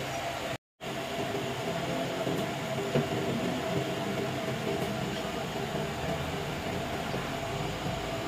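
A machine running with a steady hum and a constant whine, broken by a brief full dropout just after the start and one short click about three seconds in.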